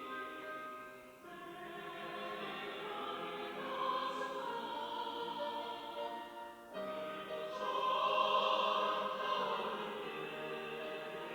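Church choir singing a sacred anthem in held, sustained chords, with a brief break between phrases about a second in and again near seven seconds in.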